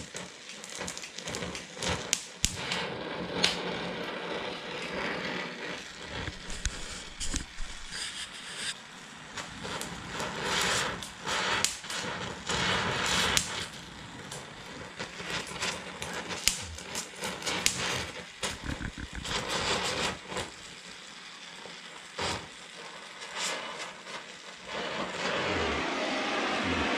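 Oxy-acetylene torch welding steel frame crossmembers: a steady hiss of flame with irregular crackling and popping from the molten weld, easing off for a few seconds near the end.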